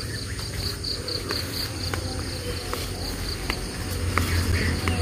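Insect chirping in a fast, even pulsing trill, with a few faint clicks scattered through it and a low rumble coming in near the end.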